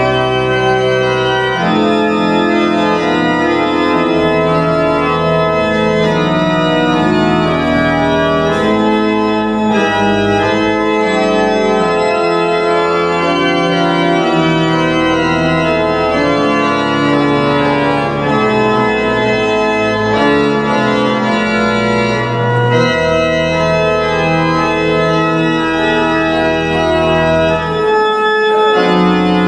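Church organ playing slow, sustained chords that change every second or two: the closing organ voluntary at the end of the service.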